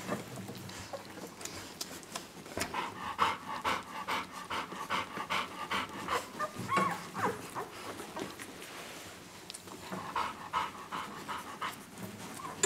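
Ten-day-old Labrador puppies nursing at their mother: runs of quick suckling smacks and small squeaks, thickest early in the middle and again briefly near the end.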